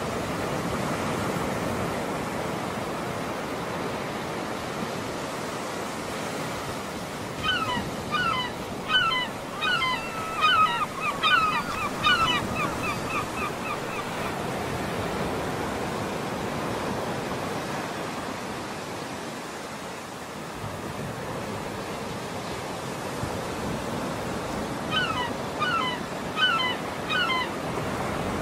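Waves washing steadily on the shore. About seven seconds in, a bird gives a run of short, repeated honking calls lasting several seconds, and a shorter run comes near the end.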